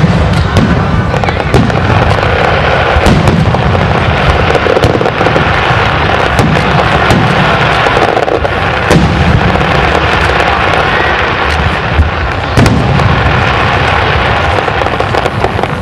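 Aerial fireworks display at full intensity: many shell bursts overlapping into a loud, near-continuous barrage of sharp bangs and low booms, with crackling from glittering star effects.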